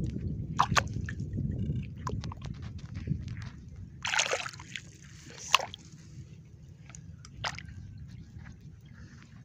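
Shallow water and soft mud sloshing as a hand digs through them feeling for clams, with a few sharper splashes, louder in the first two seconds.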